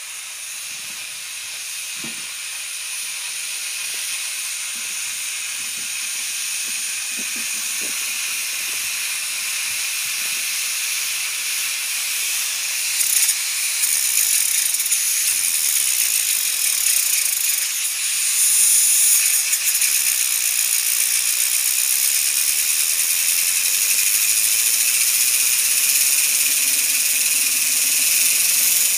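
Steam hissing from a homemade pressure-cooker steam engine. The hiss grows steadily louder and steps up sharply about thirteen seconds in.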